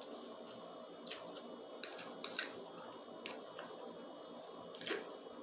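Quiet eating sounds: wet chewing of a mouthful of spaghetti, with a handful of short clicks and scrapes of a fork against the plate, the loudest about five seconds in.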